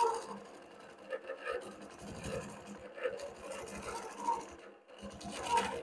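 Innova Classic 22-inch longarm quilting machine stitching free-motion feathers into a quilt, running fairly quietly.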